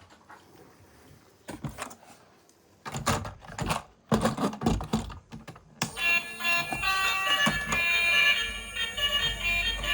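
A run of sharp clicks and clatter, then an electronic tune with a beat starts about six seconds in.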